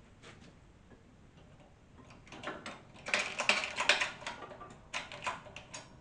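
Metal clicking and clinking from hand tools and motorcycle fork parts being worked on. The clicks come in a dense run about halfway through, then a few separate clicks near the end.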